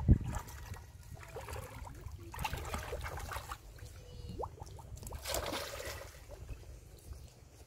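Water lightly splashing and trickling as a baby monkey swims in a pond, with scattered small knocks and a brief louder splash about five seconds in.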